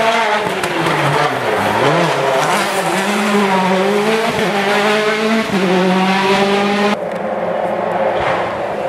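Rally car engine revving hard on a stage, its pitch falling and rising through gear changes: a dip about a second and a half in, a long climb, then a gear change about five and a half seconds in. The sound turns abruptly duller about seven seconds in.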